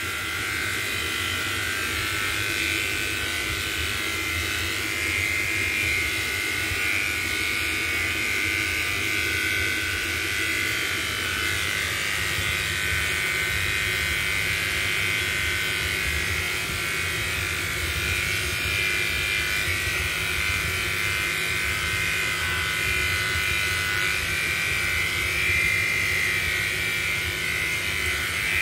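Electric pet grooming clippers running steadily while shaving a cat's coat, a constant motor buzz.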